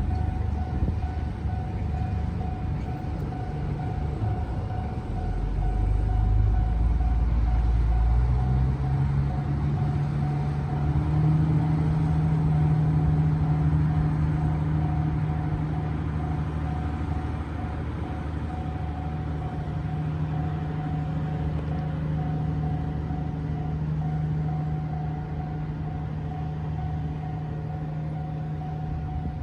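Level crossing alarm ringing in an even, pulsing tone, over a heavy engine running low; the engine's pitch rises about eight to eleven seconds in and then holds steady.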